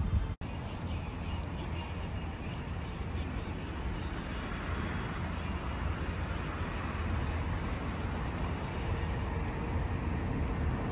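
Steady outdoor city traffic noise: a low rumble with a hiss above it, cutting out for a split second just after the start.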